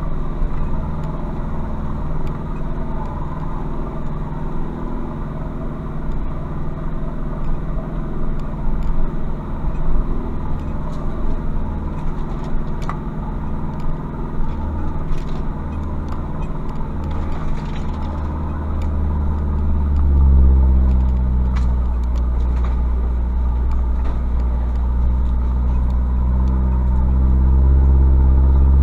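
Turbodiesel pickup engine running at low speed on a slow off-road crawl. About twenty seconds in it gets louder and the revs rise slightly as it pulls harder.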